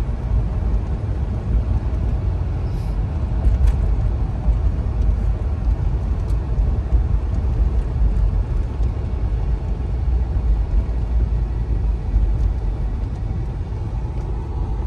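Steady low rumble of a 1992 Cadillac Brougham's V8 engine and tyres while cruising, heard from inside the cabin.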